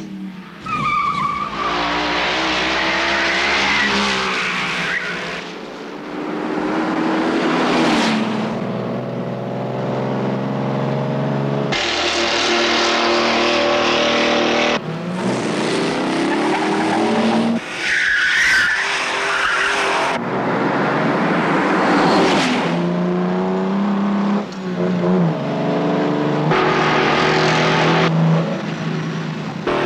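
Racing car engines running hard on a circuit, revving up and down through gear changes, with tyre squeal at times. The sound changes abruptly every few seconds as the shots cut.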